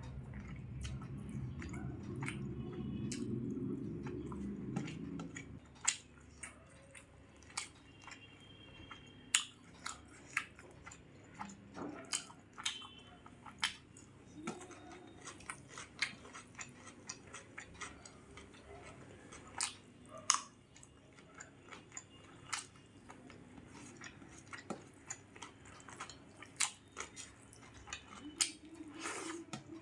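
Close-miked chewing of a meal of rice and curry, with many short, irregular wet clicks and lip smacks. A louder low rumble fills the first five seconds or so.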